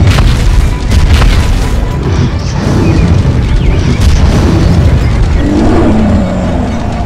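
Heavy booming explosion and impact sound effects from an animated monster fight, repeated throughout, over dramatic background music.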